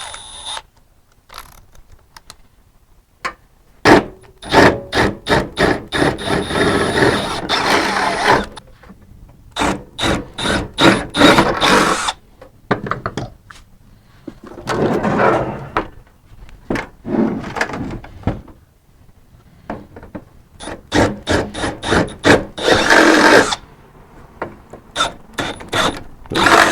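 Power drill boring out holes in a diesel heater's sheet-metal base with a large bit, run in a series of short bursts with pauses between, the bit chattering and catching on the metal.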